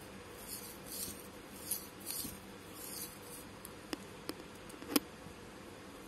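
Thread being handled in hand-work on a saree tassel: several short, soft swishes in the first few seconds, then three light clicks, the loudest about five seconds in.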